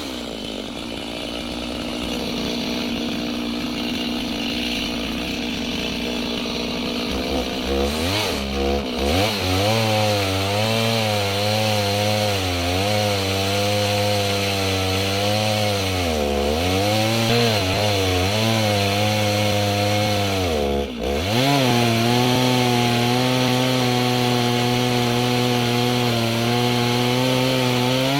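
Gasoline chainsaw ripping a log lengthwise in a chainsaw mill attachment, running at high revs under load. Its engine note sags and recovers several times, dropping sharply once about 21 seconds in.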